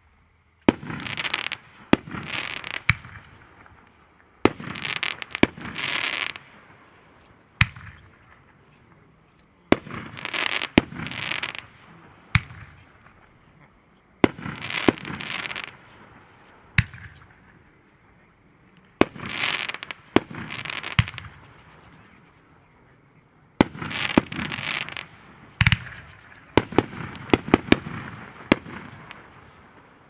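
GLASS 'Blast Furnace' 500-gram firework cake firing. Sharp shots come mostly in pairs a few seconds apart, and each is trailed by about a second of hissing. A rapid flurry of shots comes near the end.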